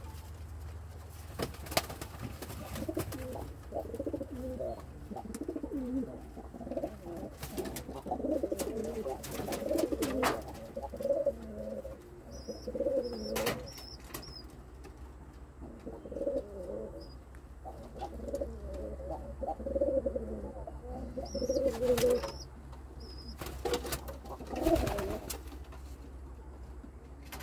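A courting pair of domestic pigeons cooing over and over in low, repeated phrases, with a few sharp knocks scattered between them.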